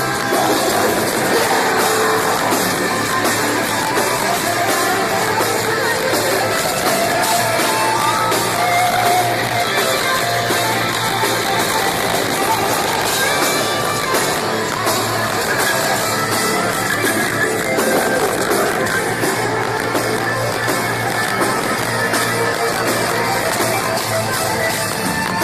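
Metalcore band playing live at full volume: loud electric guitars with vocals over them, heard as one dense, unbroken wall of music.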